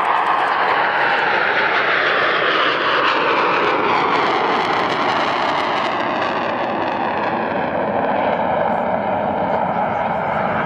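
BAE Hawk jet trainer's Rolls-Royce Adour turbofan running loud as the jet passes low and climbs away, its whine dropping in pitch as it goes by.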